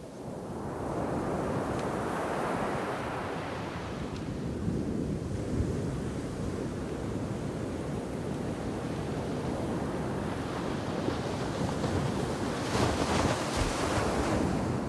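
Ocean shore-break waves crashing onto the beach and washing up the sand. The surf swells up about a second in, and a second, louder wave breaks near the end.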